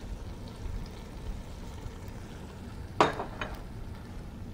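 Butter chicken gravy simmering softly in a stainless steel pot, a low steady bubbling hiss, with a sharp click about three seconds in and a fainter one just after.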